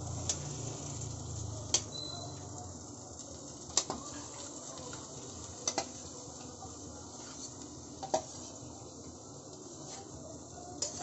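Boiled kidney beans going into masala frying in ghee in a non-stick pan: a steady low sizzle, with a few sharp knocks against the pan spread through it.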